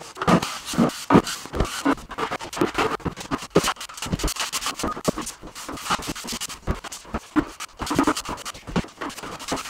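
Putty knife scraping and spreading floor patch compound thin over plywood underlay seams, in quick, irregular strokes.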